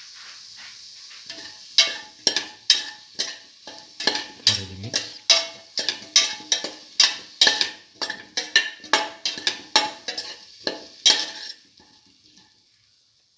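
A slotted stainless steel spoon scrapes and knocks against a stainless steel pot while stirring potato pieces with salt and ground spices, about two or three strokes a second, each with a short metallic ring. Under it there is a faint sizzle from the frying, and the stirring stops near the end.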